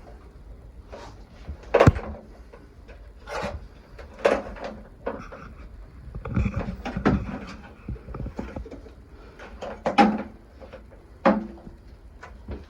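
Hands working electrical wires at a water heater's junction box: irregular clicks, knocks and rubbing as the wires are twisted together and pushed into place, with sharper knocks about two seconds in and again near ten seconds.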